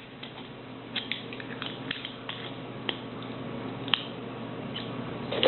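Scattered small clicks and scrapes from handling an old Storm King petrol lighter while a new flint is fitted into it, over a faint steady hum.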